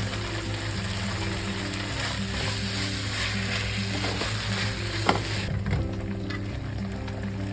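Food sizzling in a hot pan while being stir-fried, with a few sharp spatula clicks against the pan; the sizzle drops away about five and a half seconds in. Background music plays throughout.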